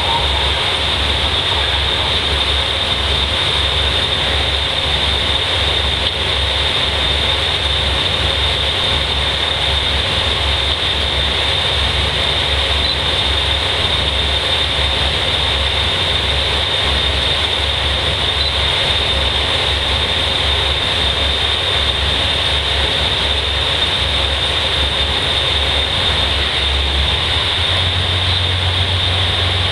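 KiHa 185 series diesel railcar's engines idling with a steady low throb; near the end the engine note rises as it throttles up to pull away.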